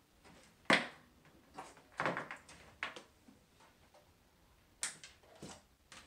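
A handful of separate knocks and clicks, the sharpest less than a second in, from a Macintosh Plus and its cables being handled and unplugged.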